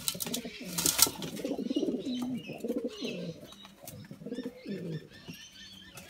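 Domestic pigeons cooing, a run of low, rolling coos one after another.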